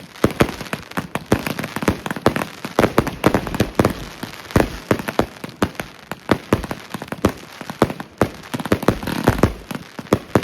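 Consumer firework cakes firing, a dense, irregular run of sharp bangs and pops coming several a second.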